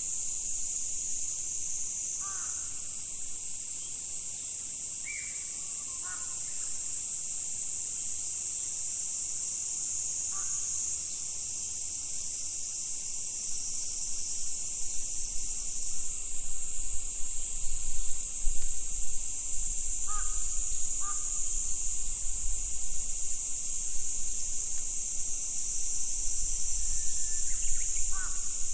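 Dense insect chorus making a steady high-pitched drone, with crows cawing now and then, a few caws at a time. A low rumble joins about halfway through.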